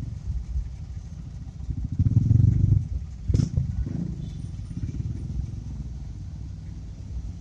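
City traffic dominated by small motorcycles and scooters, their engines running in a steady low rumble as they ride close by. There is a louder engine swell about two seconds in and a short sharp knock about halfway through.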